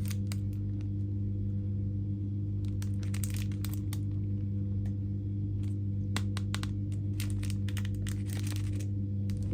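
Crinkling and crackling from something being handled, in irregular spurts of short clicks, over a steady low electrical-sounding hum.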